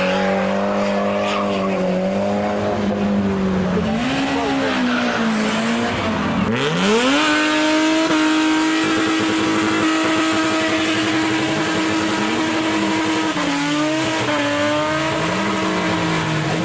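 A car engine held at steady high revs during a burnout, with the hiss and squeal of spinning tyres. About six seconds in the revs drop sharply, then climb again and hold steady at a higher pitch, with short dips in the revs near the end.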